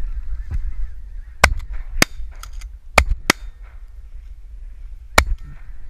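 Shotguns firing about five shots in quick, uneven succession at a flock of geese, which keep honking steadily throughout.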